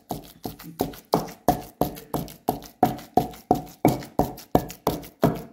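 Wooden pestle pounding boiled chicken and lentils in a heavy stone mortar, a steady thud about three times a second with a short ring after each strike. The strokes are mashing the mixture into a smooth shami kebab paste.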